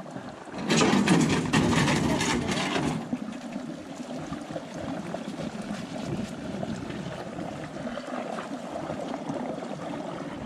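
Water splashing and pouring for about two seconds, then settling into a steady trickle of running water.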